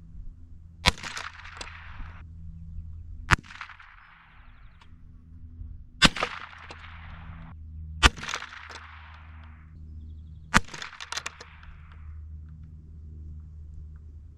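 .22 rimfire shots fired one at a time at a small padlock: five sharp cracks about two to three seconds apart, each followed by a brief echo.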